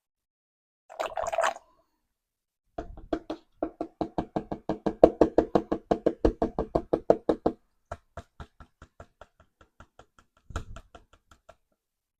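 A run of light, evenly spaced taps, about five a second at first and then slowing to about three a second, after a short rush of noise about a second in.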